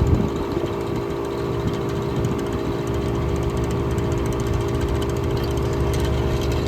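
1967 Chrysler Airtemp air conditioner with a Tecumseh AJR 1727 compressor running: a steady electric hum over an uneven low rumble.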